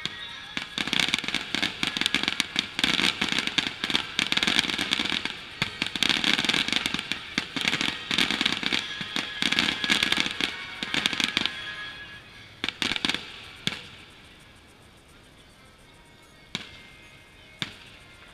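Aerial fireworks bursting overhead: a dense, rapid crackling of many small reports for about eleven seconds, dying down into a few separate bangs toward the end.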